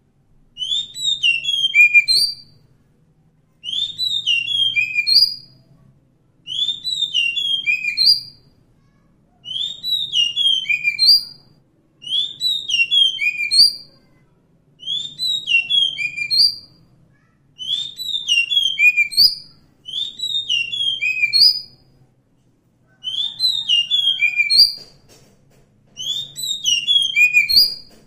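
Oriental magpie-robin singing: the same loud phrase of clear whistled notes, falling in steps, repeated about ten times with short pauses between.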